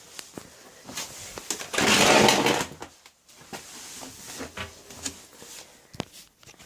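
Clicks and knocks from a Miele W941 washing machine being handled, with a loud rushing hiss lasting about a second, about two seconds in, and a sharp click near the end.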